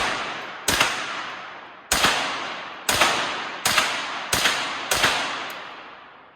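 Henry AR-7 semi-automatic .22 LR rifle fired six times in quick succession at uneven intervals, each shot ringing out and echoing away over about a second.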